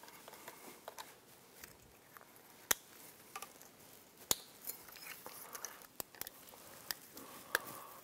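Quiet handling of an outboard's wiring harness: light rustling of wires and a handful of sharp, separate clicks from plastic connectors and tools.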